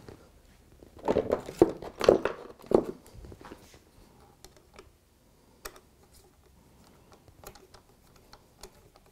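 Workbench handling noise: a screwdriver and a plastic point motor knocked and set down on the wooden baseboard, a close cluster of knocks and clatter about a second in, then a few light clicks.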